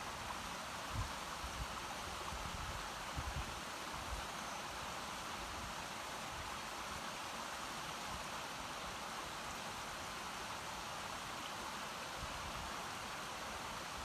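Steady rush of a mountain stream flowing over rocks, with a few low thumps about one and three seconds in.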